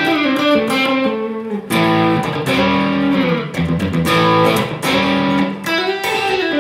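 Vena electric guitar played through a crunch preset on a Valeton multi-effects processor: picked notes and chords with a light overdrive, ringing out, with string bends in places.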